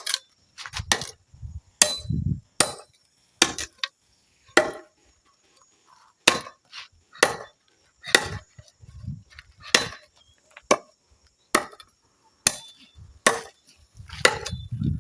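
A blade chopping into wood with single sharp strikes, roughly one a second, as a wooden lid for a log beehive is cut down to fit.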